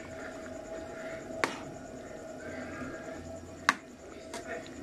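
A metal ladle stirring a thick simmering stew in a large steel pan, clinking against the pan a few times, the sharpest knock late on, over a faint steady hum.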